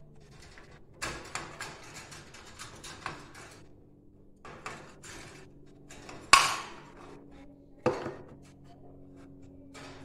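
Clatter of things being handled at a wire bird cage: a run of small clicks and rattles, then two sharp knocks about six and eight seconds in, the first the loudest.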